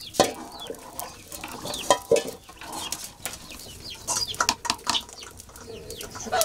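A metal ladle clinking and scraping in a metal cooking pot while stirring, with sharp clanks of metal cookware; the loudest clanks come just after the start and about two seconds in.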